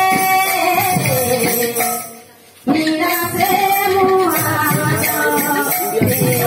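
Odia kirtan music: singing over rhythmic percussion with a shaken, jingling sound. The music breaks off suddenly about two seconds in and starts again a moment later.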